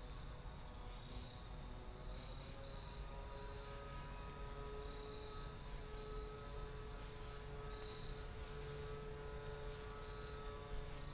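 Insects chirping in a faint, repeating pulse, over a faint steady hum.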